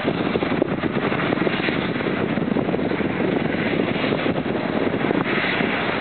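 Steady rumble of distant John Deere tractors working a hay field with a round baler and a rake, mixed with a fluttering wind buffet on the microphone.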